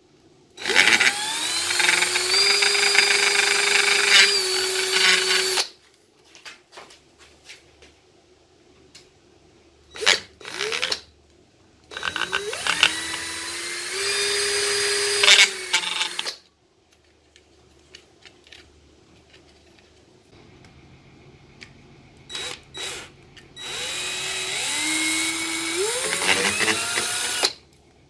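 Metabo cordless drill boring through a plastic dishwasher door-latch part held in a vise. It runs three times for about four to five seconds each, its motor whine rising as it spins up and then holding steady, with a few short trigger blips between the runs.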